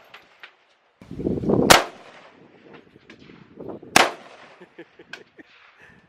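Two single gunshots about two seconds apart, with a short low rumble just before the first.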